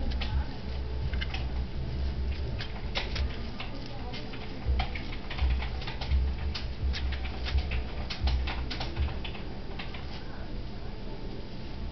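Irregular light clicks and scratches from pet rats in a wire cage, one nibbling and grooming a fingertip through the bars. The clicks come thickly at first and thin out near the end, over a low rumble.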